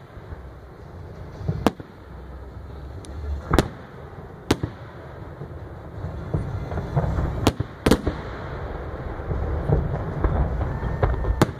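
Aerial fireworks shells bursting: about six sharp bangs at irregular intervals of one to three seconds, with a low rumble between them.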